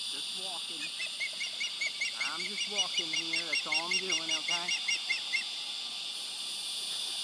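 Osprey fledgling calling a rapid series of short, high, sharp chirps, about five a second, starting about a second in and stopping past the five-second mark. A steady high insect drone runs underneath.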